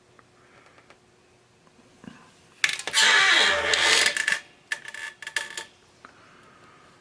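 Loud rattling clatter of small hard objects for about a second and a half, then a few sharp clicks.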